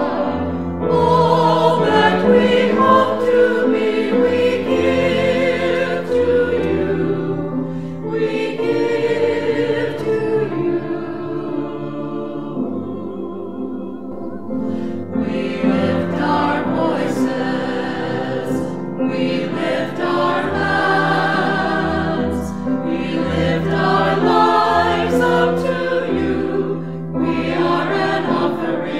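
Background music: a choir singing sustained, layered notes.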